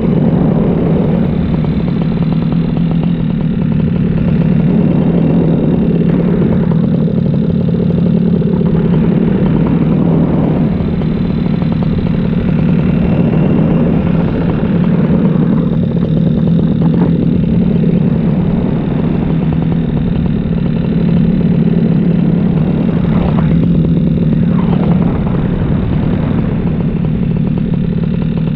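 Paramotor engine and propeller running steadily in flight, a constant loud drone.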